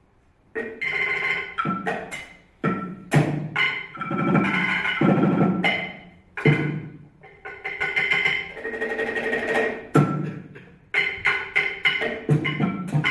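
A percussion duo playing an assortment of small objects on a tabletop with mallets and sticks: sharp strikes and fast rolls that ring with several fixed pitches, in short phrases with brief gaps. It starts suddenly about half a second in, after silence.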